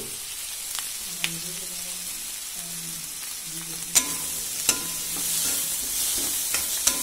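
Chopped onions and coconut pieces sizzling in hot coconut oil in a kadai, with sharp metal clinks as a steel ladle scrapes and knocks against the pan while stirring. The sizzle gets a little louder about four seconds in.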